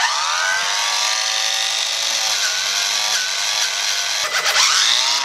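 Cordless grinder running with its disc pressed into the fiberglass keel, grinding away old filler at the weeping hull-keel joint. Its high whine starts abruptly at full speed, and its pitch sags a few times as the disc bites and then picks up again.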